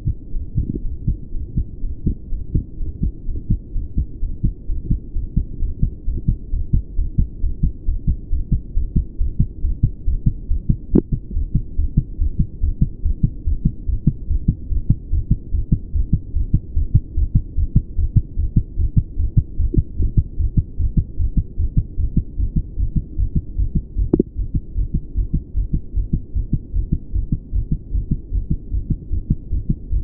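A man's heartbeat picked up by a small microphone pressed at the pulmonic area of the chest: a steady, regular run of low thudding beats. Two faint sharp clicks sound partway through.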